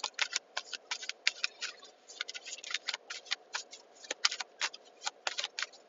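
A quick, irregular run of light clicks and taps, about five a second, with a short pause about two seconds in, over a faint steady background hum.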